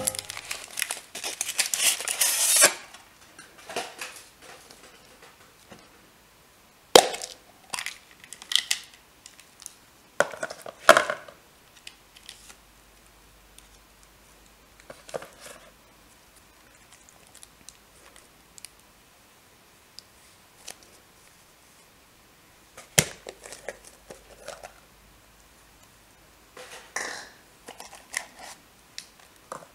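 Foil wrapper crinkling as it is peeled off a Kinder Surprise Maxi chocolate egg. Then come scattered sharp snaps and clicks as the chocolate shell breaks and the plastic toy capsule is handled and opened, with short rustles of plastic wrapping near the end.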